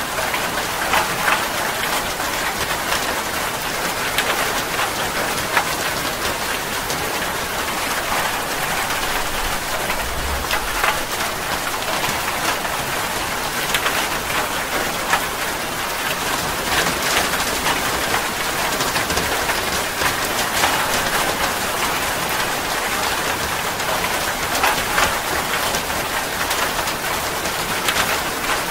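Steady heavy rain falling, with frequent sharp clicks of single drops striking close by.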